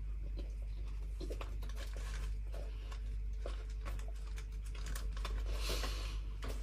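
Chewing a mouthful of bread sandwich, with small crackles and clicks of a plastic snack wrapper as food is handled on it; a denser patch of crinkling near the end.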